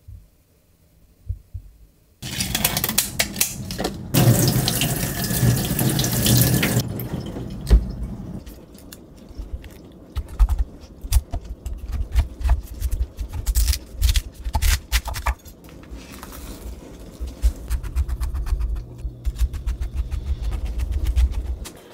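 A kitchen tap runs into the sink for a few seconds, then a chef's knife cuts through a whole pineapple on a wooden cutting board, with repeated crunching cuts and knocks of the blade on the board.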